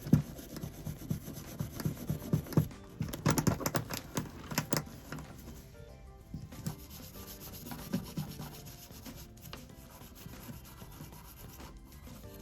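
Irregular rubbing and scrubbing strokes, as of a part being scrubbed or wiped down by hand, busiest around three to five seconds in and sparser after. Faint music plays underneath.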